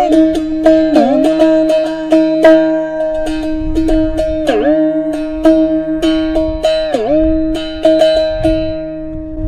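Ektara, a one-string plucked drone instrument, played over and over on a single note. The pitch dips down and springs back several times, about one, four and a half and seven seconds in.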